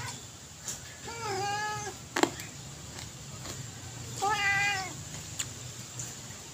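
A cat meowing twice, each meow under a second long. There is a single sharp click between the two meows.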